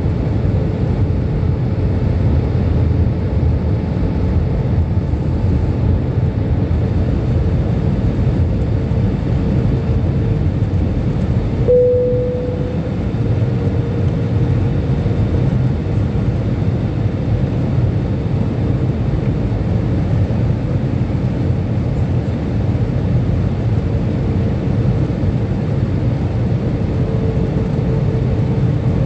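Steady cabin noise of an Airbus A320 in flight: a constant rumble of engines and airflow with a faint hum, and one short, brighter tone about twelve seconds in.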